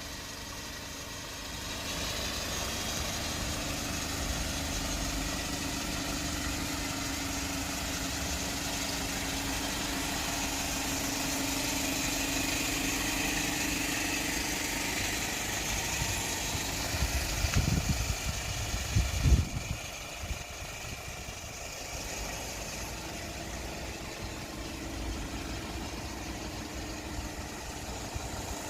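Hyundai Porter one-ton cargo truck's engine running steadily. About two-thirds of the way through come a few heavy low thumps, after which the sound settles a little quieter.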